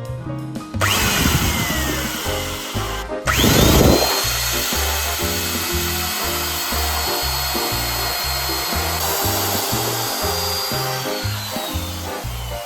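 Electric drill boring into a wooden branch, its motor whining over background music. A short run stops about three seconds in. A longer run follows with a steady whine that falls in pitch near the end as the drill slows.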